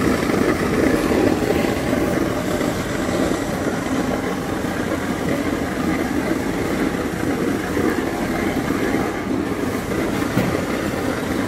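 Heat-shrink tunnel packaging machine running, with a steady, even mechanical noise that holds level throughout.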